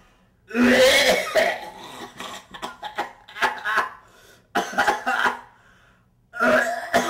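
A man coughing in repeated fits: loud bouts about a second in, near five seconds and near the end, with smaller coughs between.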